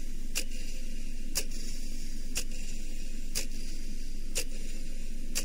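Clock ticking, one tick a second, over a steady background hiss.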